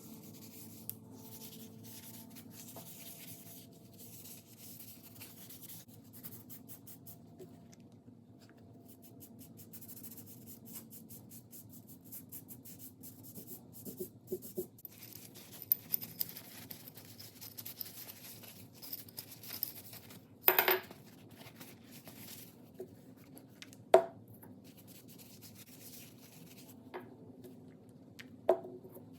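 Hand work on a cast-iron bench vise during restoration: steady light rubbing and scratching, with a few sharp knocks, the loudest about two-thirds through.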